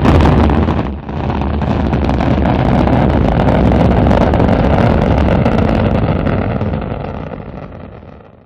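Rocket engine sound effect: a deep, steady, rushing rumble that starts abruptly, breaks off briefly about a second in, then holds and fades away toward the end before cutting off.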